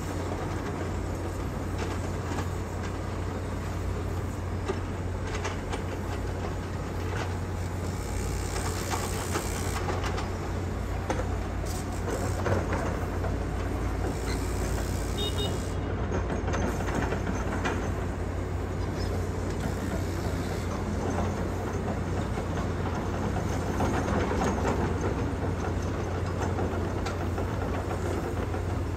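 Steady rumble of motor vehicles or heavy machinery, with a constant low hum underneath.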